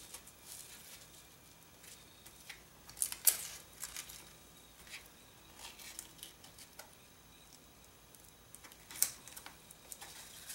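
Faint rustling and scraping of glitter-vinyl-covered ribbon being slid and smoothed by hand on a plastic placement mat, with sharper clicks about three seconds in and again about nine seconds in.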